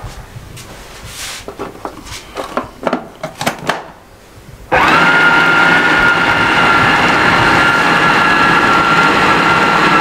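A few light clicks and knocks, then an electric food processor motor switches on about halfway through and runs steadily at high speed with a constant whine, chopping raw chicken patty mixture to a paste.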